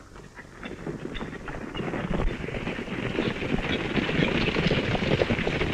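Hoofbeats of several horses galloping, a dense patter that grows louder over the first couple of seconds and then holds.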